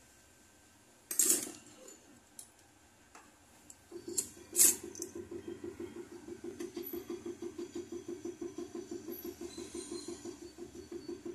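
Metal tools clicking down on a soldering brick a few times. From about four seconds in, a jeweller's soldering torch runs with an even, fast-pulsing hum.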